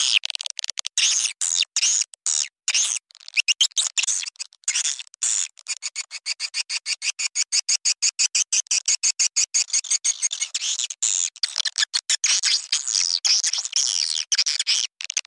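Swiftlet call recording used as a lure for nesting swiftlets: rapid trains of short, high chirps and twitters. It comes in choppy bursts with short gaps for the first few seconds, then turns into an unbroken chatter. The recording sounds thin, with no low end.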